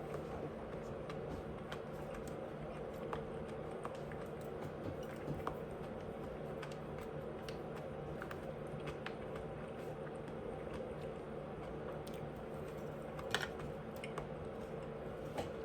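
Close-miked chewing: a person eating, with many small, scattered mouth clicks and one sharper click about 13 seconds in, over a steady background hum.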